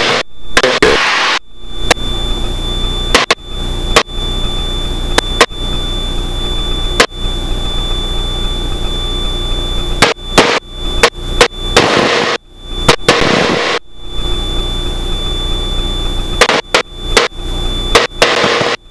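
Extra 300L's six-cylinder Lycoming engine and propeller droning steadily in cruise inside the cockpit, with a faint high steady whine. The drone is broken by repeated sharp clicks and brief dropouts in the sound.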